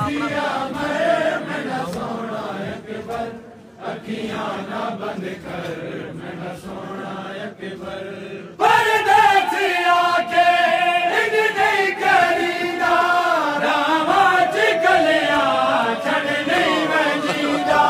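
Group of men chanting a noha, a Shia lament, together with a lead reciter on a microphone. About eight and a half seconds in, the singing turns suddenly louder and fuller.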